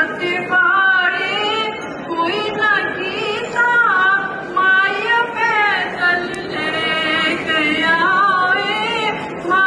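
A woman singing a folk song solo and unaccompanied, holding long notes with wavering ornaments and short breaths between phrases.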